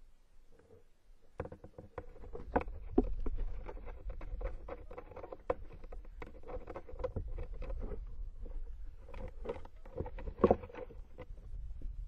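Tawny owl scrabbling inside a wooden nest box as it hauls in a large, half-plucked bird as prey: a dense run of scratches, rustles and knocks that begins about a second and a half in. The two loudest knocks come about three seconds in and near the end.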